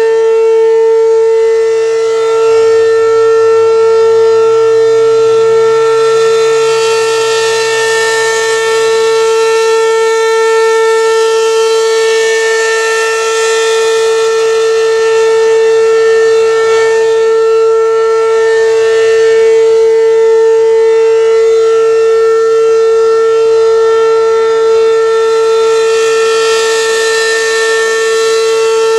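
American Signal RM-127 outdoor warning siren sounding a loud, steady single tone that holds its pitch throughout, the brighter upper part of the tone swelling and fading every several seconds.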